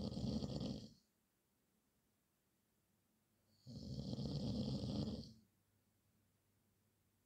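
A man snoring: one snore trails off about a second in, and a full snore of nearly two seconds comes in the middle, with quiet breaths between them.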